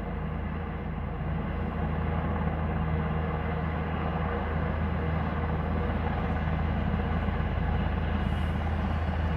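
A steady low engine drone that holds at an even level without change.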